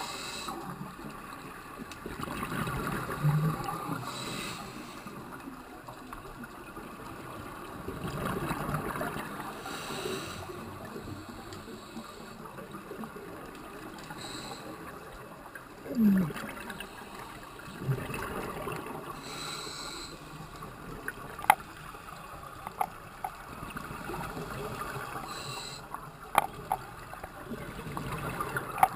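Scuba diver breathing through a regulator underwater: a short hiss on each inhalation about every five seconds, alternating with rumbling gushes of exhaled bubbles. Several sharp clicks come in the last third.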